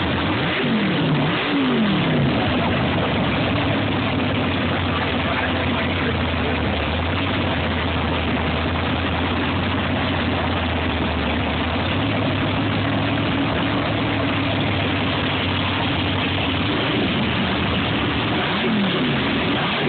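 An engine running steadily, with a short falling pitch sweep twice about a second in and twice near the end.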